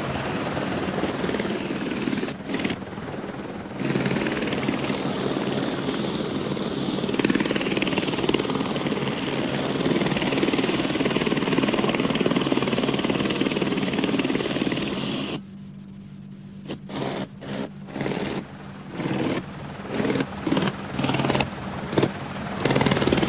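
Eurocopter AS350 helicopter running on the ground with its turbine and main rotor at idle, a steady dense rush over a low hum. About two-thirds of the way in the rush drops away suddenly, leaving the low hum, and short bursts of noise come and go after that.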